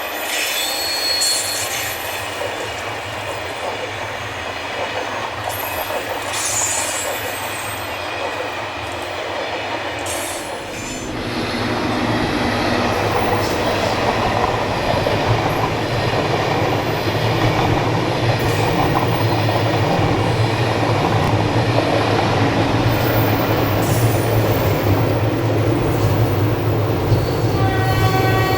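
An SNCF passenger train running past at low speed, its wheels squealing on the rails. A deep rumble builds about ten seconds in and holds, and a shrill steady tone starts near the end.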